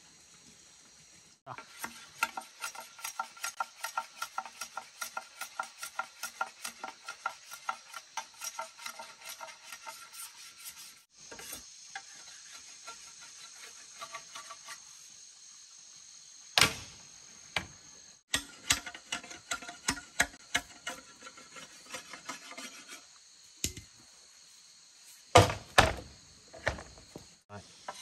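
A hand tool scraping or rasping bamboo in quick, even strokes, about three a second, across several short takes. A few sharp knocks of tool on bamboo stand out as the loudest sounds, one just past halfway and a louder pair near the end.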